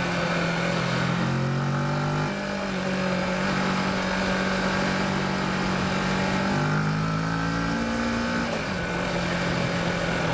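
Kawasaki Versys motorcycle engine pulling uphill, heard from the bike with wind rush. Its note steps up and back down twice as the throttle changes through the corners.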